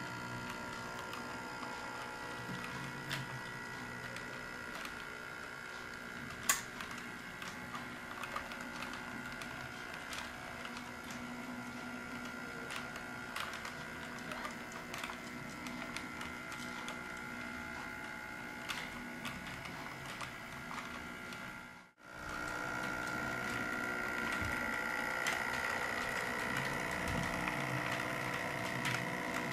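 Model train running on sectional track: a steady electric motor whine with wheels clicking over the rail joints. The sound drops out for a moment about two-thirds of the way through, then the whine is louder as the locomotive comes past.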